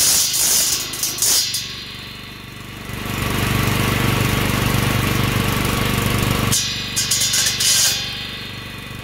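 Small gas engine running a homemade mower deck fitted with circular saw blades, while a wooden board is struck into the spinning blades. The board hitting the blades makes a harsh, high clattering at the start and again from about six and a half to eight seconds in. Between the two, the engine's low steady hum is louder.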